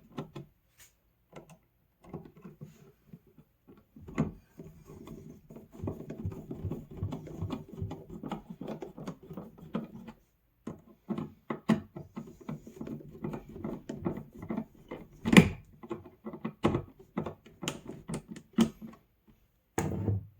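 Screwdriver driving a light switch's mounting screws into a plastic electrical box: irregular clicking and scraping as the screws turn, with a few sharper knocks as the switch and tool are handled.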